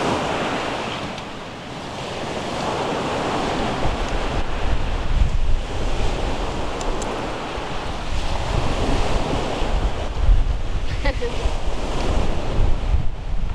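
Sea waves washing ashore in slow swells every few seconds, with wind buffeting the microphone.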